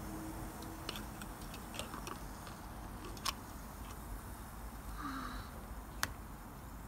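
A few scattered light clicks and taps over a low steady background, the sharpest about six seconds in.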